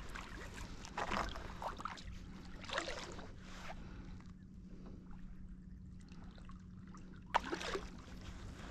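Kayak paddle blades dipping and splashing in the water in a few irregular strokes, the loudest splash near the end.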